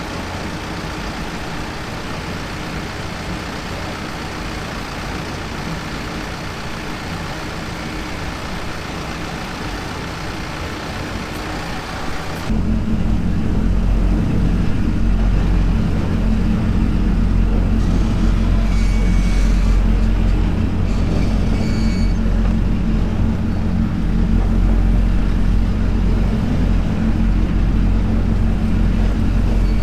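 Farm tractor engine running steadily, most likely working a silage grab. About twelve seconds in the sound changes abruptly to a louder, deeper drone.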